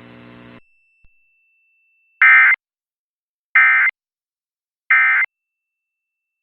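Three short bursts of EAS end-of-message data tones, each a harsh digital warble about a third of a second long, about a second apart. They signal that the emergency alert is over. Before them, a faint steady electronic buzz cuts off about half a second in.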